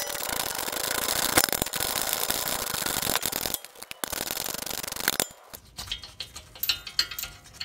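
Ratchet clicking rapidly as it backs out a rear hub-bearing bolt, in two long runs with a short break about three and a half seconds in. After that come scattered light clicks and taps as the loosened bolt is handled.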